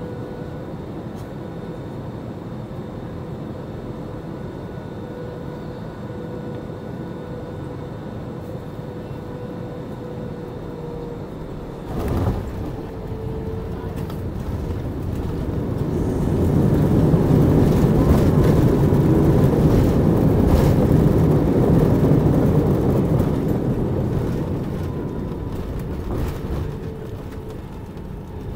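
Airbus A320 landing, heard from inside the passenger cabin: steady engine hum on final approach, a sudden thump of touchdown about twelve seconds in, then a loud rush of reverse thrust and braking that swells for several seconds and dies away as the jet slows on the runway.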